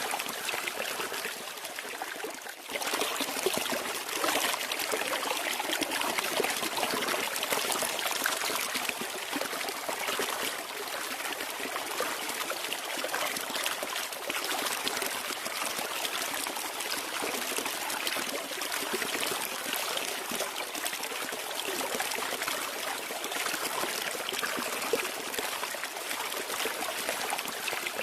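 Flowing water trickling and rushing steadily, like a small stream. It dips briefly about two and a half seconds in, then carries on at a slightly higher level.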